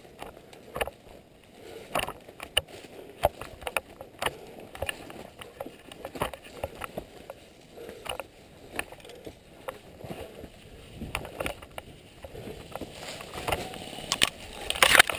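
Footsteps crunching through dry fallen leaves and twigs, an irregular crackle of about one to two steps a second, with louder rustling near the end as branches brush past.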